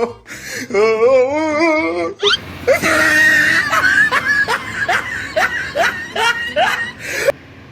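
Comic voice sound effect: a wobbling, wavering cry, then a long burst of laughter with repeated short rising squeals that cuts off suddenly near the end.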